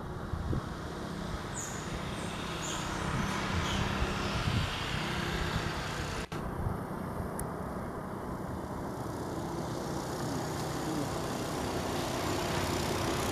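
Steady road traffic noise, with a momentary dropout about six seconds in.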